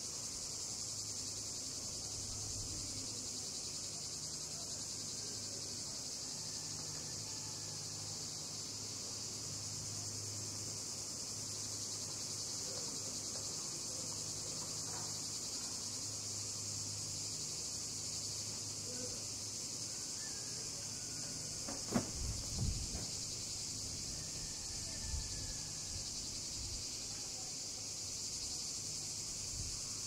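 A steady high drone of cicadas singing in chorus, over a faint low hum. About two-thirds of the way through, a sharp knock and a few softer thumps stand out, with one more thump a few seconds later.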